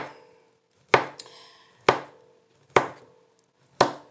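Copper Chef kitchen knife slicing through banana onto a tabletop: five sharp knocks, about one a second, each with a brief ring.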